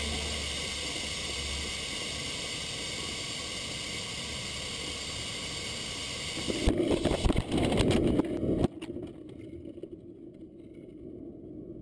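Wind noise on a high-power rocket's onboard camera in flight: a steady hiss with a thin electronic whine. About six and a half seconds in, loud buffeting with knocks lasts about two seconds. It then cuts down sharply to a quieter low rumble.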